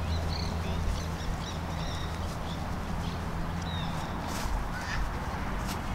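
Birds chirping and calling, short high calls scattered throughout, over a steady low hum that fades out a little past halfway. Two brief clicks come near the end.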